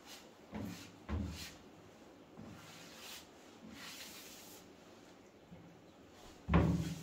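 Handling sounds of filler being worked into a wall seam: faint rubbing and scraping with a few soft knocks. The loudest knock comes about six and a half seconds in.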